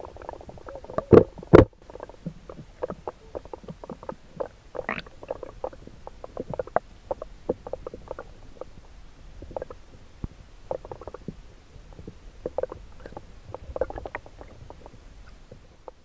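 Underwater sound picked up by a submerged camera: two loud knocks about a second in, then irregular small clicks and ticks in the water as a soft plastic lure is swum past.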